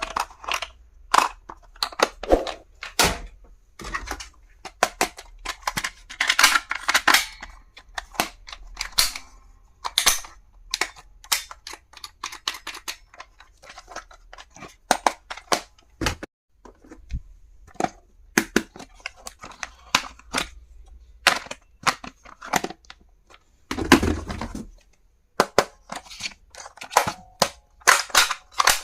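Irregular sharp clicks, snaps and taps of hard plastic stationery items being handled and knocked together, with one longer scraping rustle late on.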